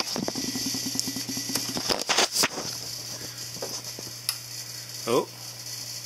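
Trane XV90 gas furnace with its door interlock switch being worked by hand: a short, fast, even rattle, then a few sharp clicks about two seconds in and another click later, over a steady low hum. The blower motor has not started yet.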